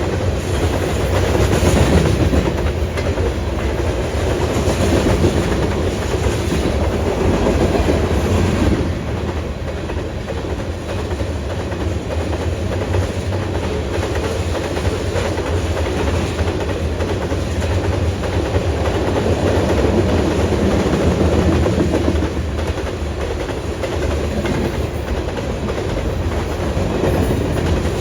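Freight cars of a sand train rolling past, wheels clattering steadily over the rail joints with a low rumble, the sound swelling and easing a little as the cars go by. The cars are believed to be carrying sand loads.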